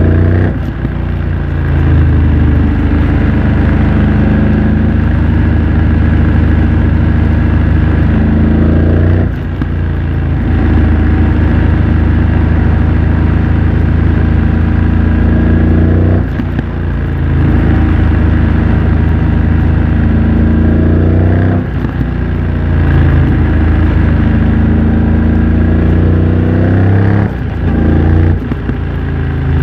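BMW F900 XR's parallel-twin engine running under load through a MIVV X-M1 aftermarket exhaust, heard from the rider's position. The engine note holds fairly steady for stretches, then four times dips briefly and jumps to a new pitch as gears are changed.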